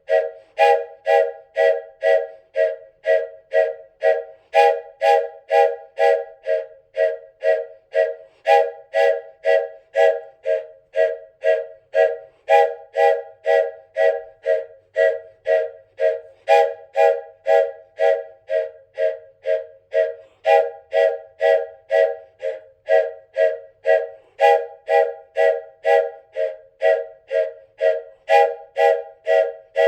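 Wooden train whistle sounding a chord in short, evenly spaced toots, about two a second, in an unbroken steady rhythm.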